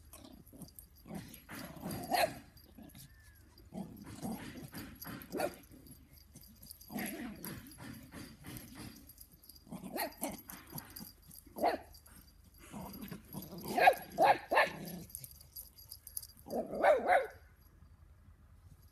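Yorkshire terrier and a larger dog barking during rough play, in quick bursts of several sharp barks separated by short pauses. The last loud burst comes about a second before the end.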